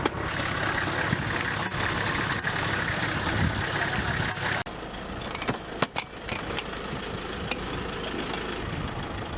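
A 4x4 driving over a flat desert surface, heard from inside the vehicle: steady engine, tyre and wind noise. About halfway through it cuts off suddenly and gives way to a quieter steady engine hum with a few sharp clicks and knocks.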